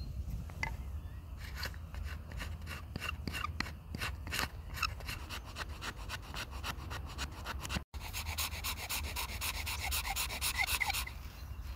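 A wooden stick scraped repeatedly along a steel blade, shaving off tinder, at about three strokes a second. About eight seconds in, a ferro rod is struck quickly and repeatedly against the blade's edge, a faster, brighter rasping that stops about a second before the end.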